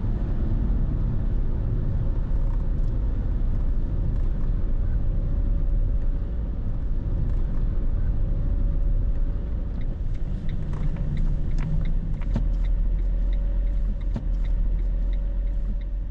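Car driving on the road in the rain: a steady low rumble of tyres and road noise, with scattered sharp ticks from about ten seconds in.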